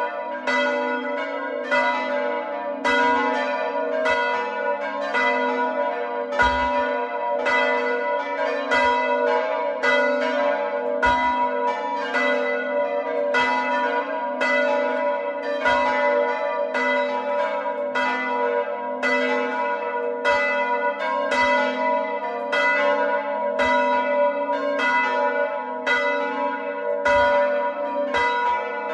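A peal of four hand-rung church bells: the largest, tuned to A3, cast by De Poli in 1921, and three cast by Paolo Capanni in 1951. The strikes follow one another about once a second, their ringing overlapping steadily.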